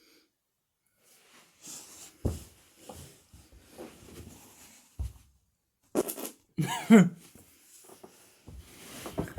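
LEGO pieces being handled and fitted together: scattered clicks and rustling, with two sharp knocks about two and five seconds in. About six to seven seconds in, a short wordless vocal sound sliding in pitch, louder than the handling.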